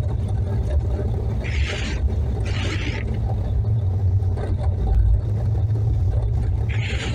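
Steady low rumble of a Mercedes-Benz car driving on a snow-covered road, heard from inside the cabin. Two pairs of short hissing sweeps, about a second apart, come early and again near the end.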